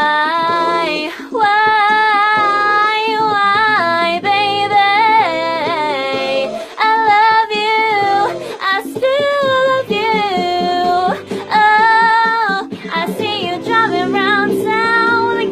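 A female voice singing long, wavering held notes and runs with no clear words, over a steady instrumental backing: ad-libs closing the song.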